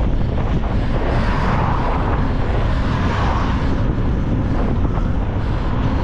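Steady rush of wind buffeting the microphone while riding fast along an open road, with road and vehicle rumble underneath.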